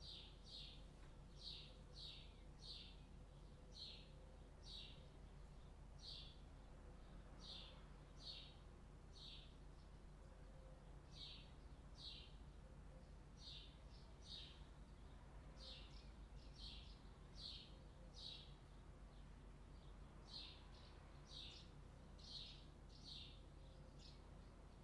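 Faint bird chirping outdoors: short high chirps repeated about once or twice a second, often in quick pairs, over a faint steady low hum.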